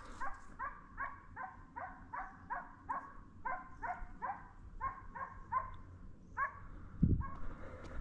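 A hunting dog barking in a steady run of about three barks a second, which stops about six and a half seconds in. A thump follows, then footsteps crunching on a stony track.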